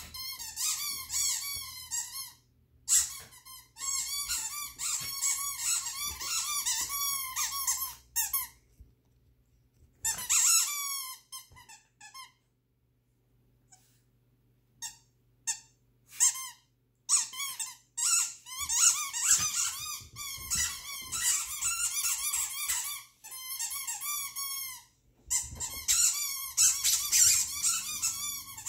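A squeaky dog toy inside a sock being chewed by a West Highland white terrier: long runs of quick squeaks, each bending in pitch, with a lull of a few seconds a little before halfway.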